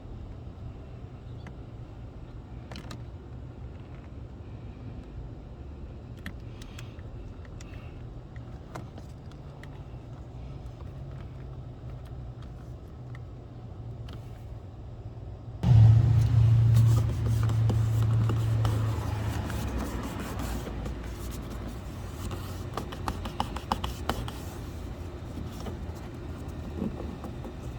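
A steady low hum, then about two-thirds of the way through a sudden loud low rumble of a vehicle that gradually eases off over several seconds, with scattered clicks and rattles after it.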